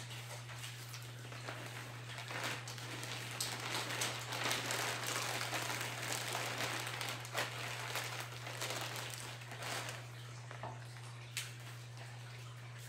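Rustling and crinkling of packaging and a garment being handled, with a few sharp clicks, louder for the first ten seconds and quieter near the end. A steady low hum runs underneath.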